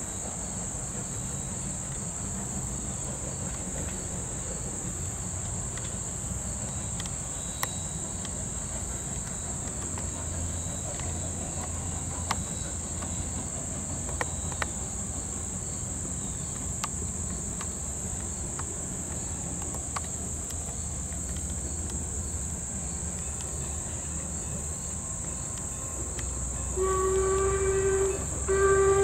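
Steady high drone of insects over the low rumble of an approaching Strasburg Rail Road steam train. Near the end the steam locomotive's whistle blows twice, the loudest sound.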